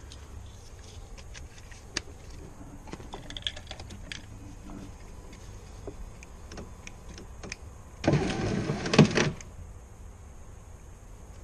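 VW Golf Mk4 power window regulator motor running for just over a second, about eight seconds in, worked from the loose door switch panel. Before it there are a few light clicks of the switch buttons being handled.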